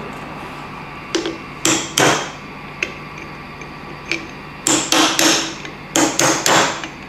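Hammer tapping a drift against a Ducati 998 piston's gudgeon pin to knock it out: about ten light metallic taps in uneven groups, each with a short ring.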